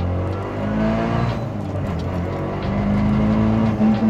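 Mitsubishi Lancer Evolution 6.5 Tommi Mäkinen Edition's turbocharged four-cylinder accelerating hard, heard from inside the cabin: the revs climb, drop at a gear change about a second and a half in, then climb again louder in the next gear.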